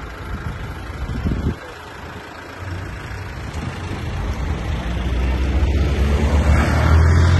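A large vehicle's engine running close by, a low steady rumble that grows louder over the second half.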